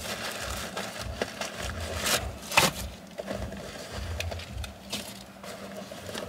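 Rustling and small clicks and knocks of items being handled and taken out of a floral fabric cosmetics pouch, with a sharp click about two and a half seconds in.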